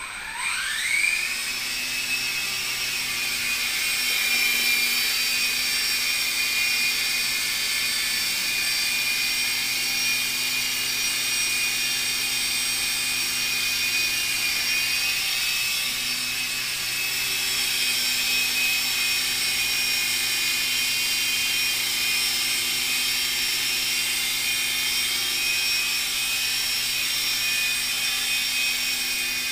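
Blade mCX micro coaxial RC helicopter's electric motors and rotors spooling up with a rising whine over the first two seconds, then a steady high whine as it hovers, the pitch wavering slightly with throttle corrections.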